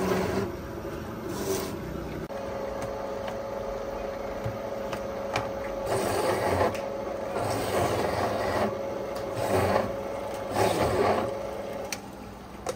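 Rasping, scraping strokes repeated every second or two, over a steady hum that starts about two seconds in and stops near the end.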